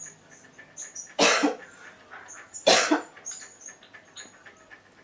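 A man coughing twice, hard, about a second and a half apart: put-on coughs faked for a coughing-up-blood prank.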